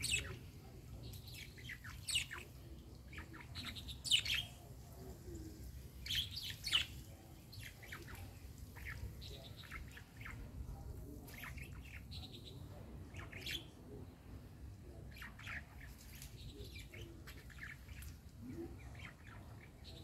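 Garden birds chirping: short, sharp calls scattered throughout, with the loudest bursts about 2, 4 and 6 to 7 seconds in.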